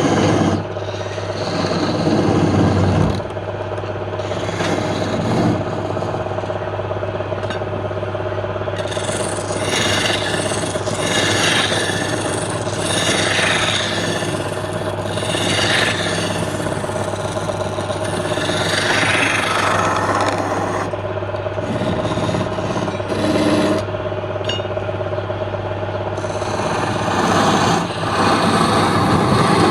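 Wood lathe running with a steady motor hum while a tool rasps against the spinning wooden workpiece, in repeated passes that swell and fade.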